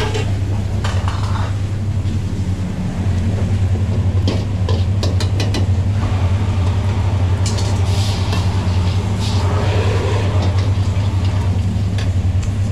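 Steady low hum of kitchen equipment, with a steel ladle scraping and clinking against a wok several times, mostly in the middle of the stretch.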